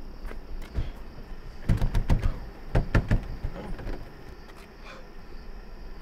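A cluster of thumps and knocks from a wooden shed's double doors being handled, starting about two seconds in and lasting about two seconds. Steady cricket chirping runs behind.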